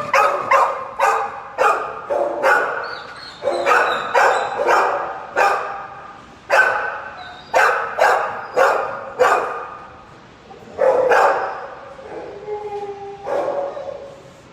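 Dogs in a shelter kennel barking over and over in irregular volleys, the barks echoing off the kennel walls.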